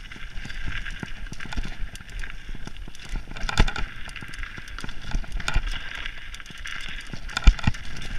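Mountain bike riding fast down a snowy trail: the bike rattles and clatters over bumps, with tyres hissing through the snow and heavier knocks about three and a half seconds in and again near the end.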